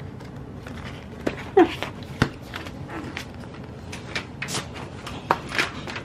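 Sticker sheets and plastic sleeves being handled and flipped through: irregular rustling and light clicks, with a sharper click a little after two seconds in. A brief pitched sound comes about one and a half seconds in.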